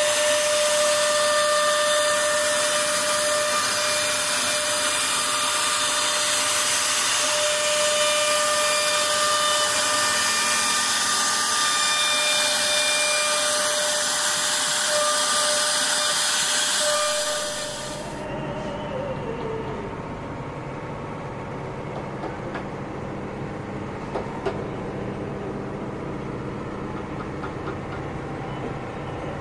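CNC router spindle cutting into a wooden door panel: a loud steady high whine over the hiss of the bit chipping wood. About 17 seconds in the cutting noise drops away and the whine falls in pitch, leaving a quieter low steady rumble with a couple of faint clicks.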